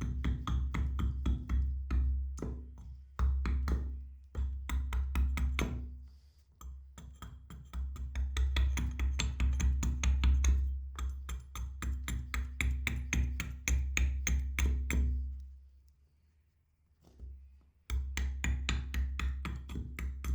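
Background music with a fast, steady percussive beat over a deep bass line. It breaks off briefly twice, the longer break near the end.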